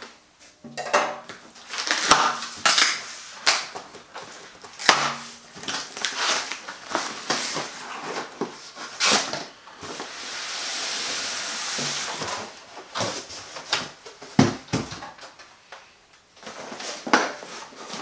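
Cardboard box being opened and handled: irregular knocks, clicks and rustles of flaps and card, with a steady scraping rush lasting about two seconds, about ten seconds in.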